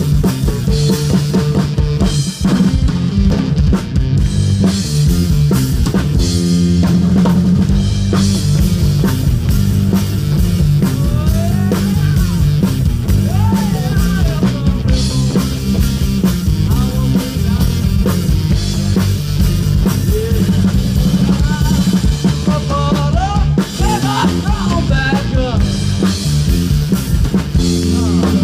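Live rock band playing, with the drum kit's bass drum and snare to the fore over electric guitars, and a lead line that bends in pitch through the middle and latter part.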